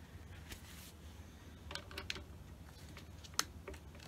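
Faint scattered clicks and light taps of tools and screws being handled against a wooden hive box, a small cluster a little before two seconds in and one sharper click near the end, over a low steady hum.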